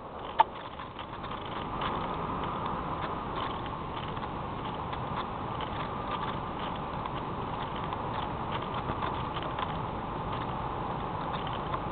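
Hubsan Spyhawk FPV plane's electric motor and propeller running at a steady pitch, heard from on board with wind noise and scattered clicks. A sharp click comes about half a second in, and the motor gets louder about two seconds in.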